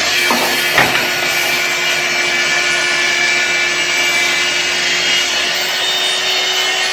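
Track saw running steadily as it cuts lengthwise through the wooden shuffleboard table top, with a short knock about a second in.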